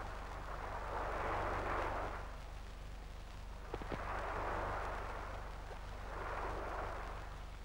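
Surf washing onto a beach, a rush of noise that swells and fades about every two and a half seconds, over the steady low hum of an old film soundtrack. Two light clicks come just before four seconds in.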